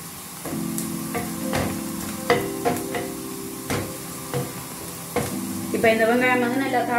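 Wooden spatula stirring chopped onions and green chillies frying in oil in a ceramic-coated frying pan, with a low sizzle and irregular knocks of the spatula against the pan.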